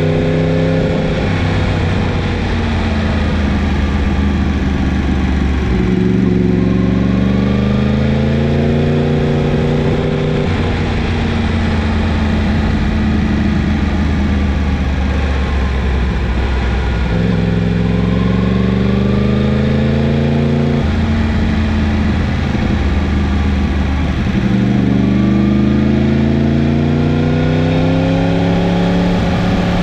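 Yamaha MT-10's inline-four engine under way. Three times the revs climb steadily for a few seconds as the bike accelerates, then drop back to a lower steady run off the throttle.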